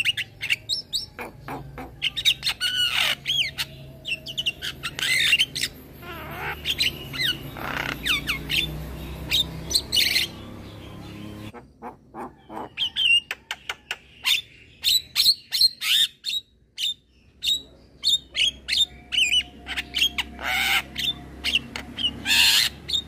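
Young male Javan myna singing a rapid run of harsh squawks, clicks and short whistled notes, with a brief pause about two-thirds of the way through.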